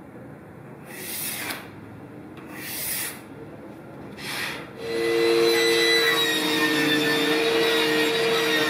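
Three short scraping strokes of a pencil drawn along a steel square on plywood, then a Ryobi table saw starts about five seconds in and runs with a steady whine while plywood is fed through it.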